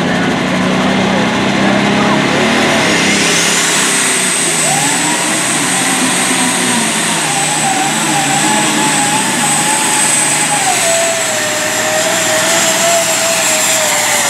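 International Harvester hot farm pulling tractor's diesel engine running at full throttle under heavy load while it drags the sled. A high whistle climbs about three seconds in and then holds, and the engine note drops a little about eleven seconds in as the sled bears down.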